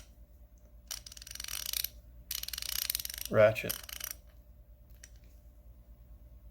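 Carlyle 1/2-inch drive 90-tooth ratchet being turned back and forth, its pawl giving two runs of fine, rapid clicking, each about a second long.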